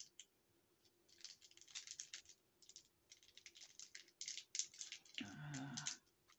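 Quick light clicks and rattles of small hard pieces being handled, as a ring is opened and slid into place, coming in bursts with short pauses. A brief low murmur of her voice about five seconds in.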